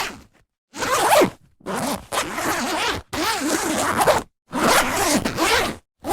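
A zipper being pulled repeatedly: about five zips in a row, each from half a second to over a second long, with short silences between them.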